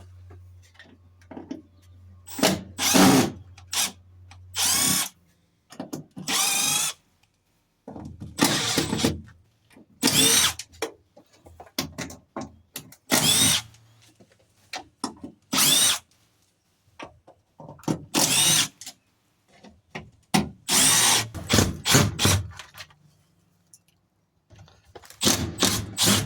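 Cordless drill/driver backing screws out of a screen door's fittings in about ten short runs of a second or so each, its whine rising and falling in pitch as the trigger is squeezed and released.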